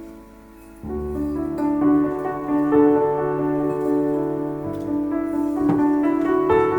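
Slow piano music of held chords, a new chord coming in about a second in.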